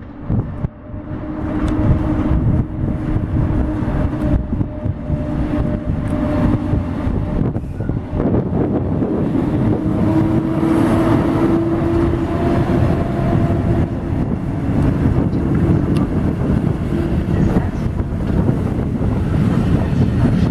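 Polish EP07 electric locomotive and its passenger coaches rolling slowly past along the platform. A steady rumble carries a steady hum that is loudest as the locomotive goes by, with scattered clicks of wheels over the rails.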